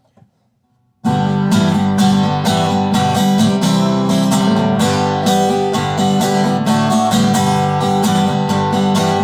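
Instrumental intro of a country song: strummed acoustic guitar in a steady rhythm, starting suddenly about a second in.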